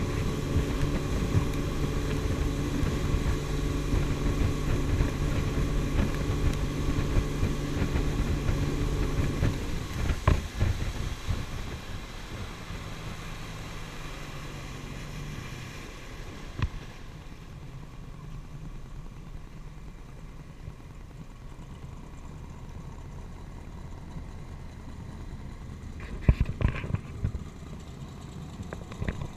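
Speedboat engine running at speed with rushing water and wind. About ten seconds in the engine note drops and the sound gets quieter. A few short knocks near the end.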